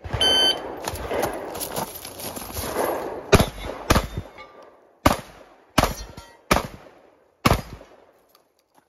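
A shot timer beeps once at the start. After about three seconds of background noise, six 12-gauge shots from a Beretta 1301 semi-automatic shotgun follow, unevenly spaced and mostly under a second apart.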